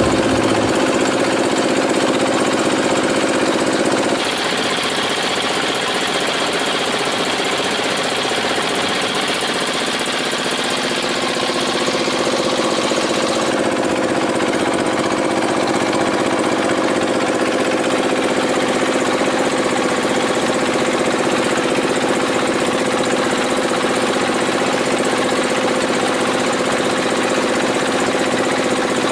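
Small boat's engine running steadily under way, with water rushing and splashing along the hull; the engine's tone shifts slightly about four seconds in.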